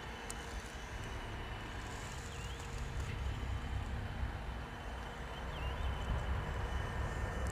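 Steady low rumbling outdoor noise with faint steady hums, and two short high chirps about two and a half and five and a half seconds in.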